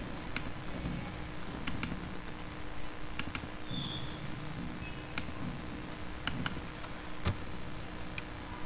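Computer mouse clicking: about ten sharp, irregular clicks, over a steady low hum of room noise.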